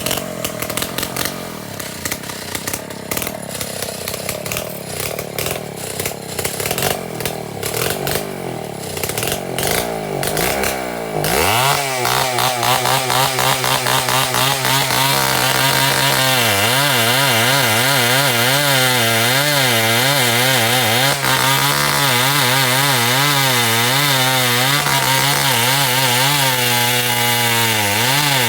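Two-stroke chainsaw running unevenly at low speed, then revved up about eleven seconds in. It holds high revs for the rest of the time, its pitch wavering up and down as the chain is loaded in cutting timber.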